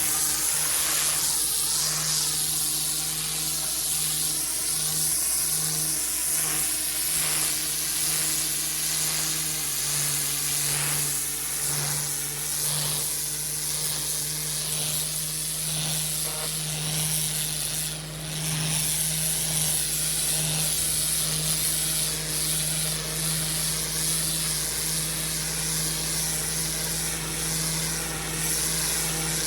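Petrol pressure washer running steadily while its high-pressure water jet hisses and scrubs across block paving, briefly easing off about eighteen seconds in.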